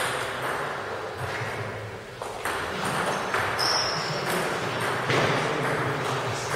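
Table tennis ball clicking off bats and the table in a rally, a sharp tap every half second or so, each one ringing briefly in a large hall.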